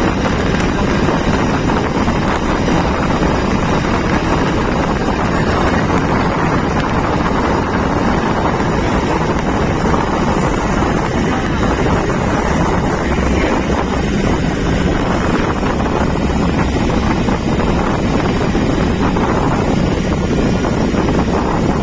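Steady wind noise buffeting the microphone, a loud, even rush with no breaks.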